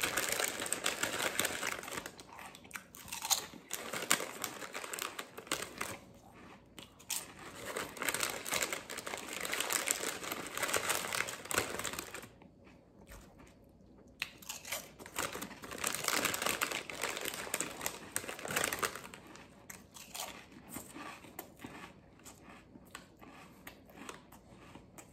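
Plastic snack bag crinkling as a hand rummages in it, in spells of a few seconds with a short quiet pause midway, along with crunchy chewing of the snack.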